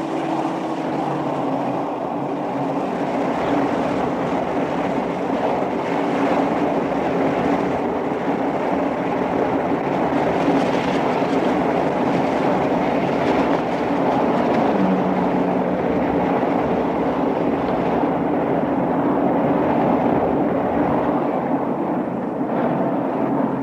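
Open-top car driving along a road: a steady engine drone under road and wind noise, the engine note dropping a step about 15 seconds in.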